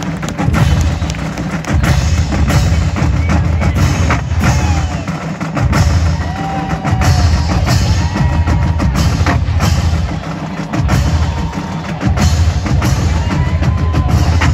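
Marching band drumline playing a loud drum cadence, heavy bass drums under rapid drum strokes, in phrases broken by short pauses.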